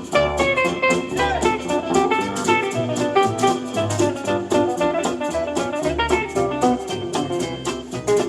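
Live band playing an instrumental: a lead guitar melody over bass and drums with a steady, swinging beat.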